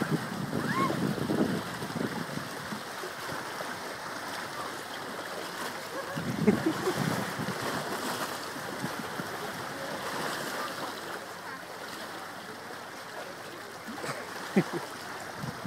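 Steady wash of surf on a rocky shore with wind on the microphone, and brief faint voices of onlookers now and then.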